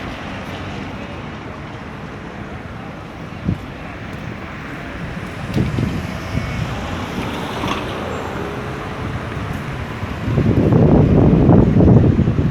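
Street traffic with wind on the microphone. About ten seconds in, a louder low rumble builds as a vehicle passes close.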